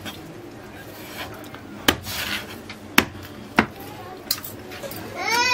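A long kitchen knife chopping through reef cod and knocking on a wooden cutting board, three sharp knocks spaced about a second apart. A short pitched call, a voice or animal, rises and falls near the end.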